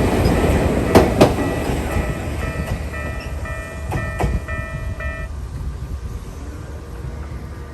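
Ueda Electric Railway train passing and receding, its wheels clicking twice over a rail joint about a second in, with a fading rumble. The level crossing's slow Keikyu-type electronic alarm tone sounds under it and stops about five seconds in.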